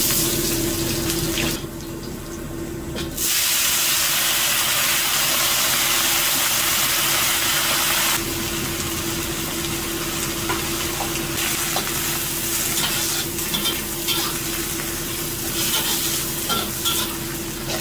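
Garlic and then leafy greens sizzling in hot oil in a carbon-steel wok, a metal spatula scraping and tossing them. The sizzle gets suddenly louder about three seconds in and eases a little after eight seconds, with spatula scrapes and clicks, over a steady low hum.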